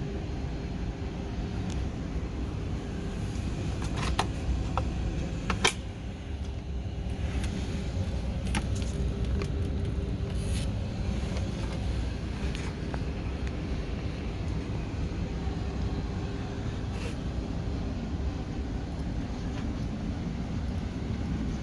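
Steady cabin noise inside an Airbus A321neo: a low rumble with a constant hum. A few sharp clicks come about four to nine seconds in.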